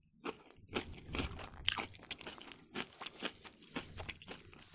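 A person chewing food close to the microphone: an irregular run of crunchy, crackling chews.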